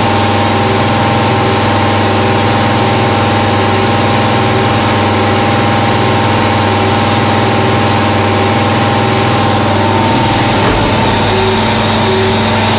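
1995 Haas VF-3 CNC mill's spindle running as an end mill cuts a metal part under coolant spray: a steady machine whine of several tones over a hiss. The pitch shifts slightly about ten seconds in.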